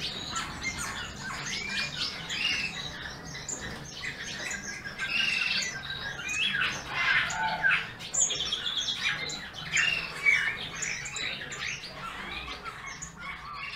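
Garden songbirds chirping and warbling, many short calls and phrases overlapping without a break, over a faint low hum.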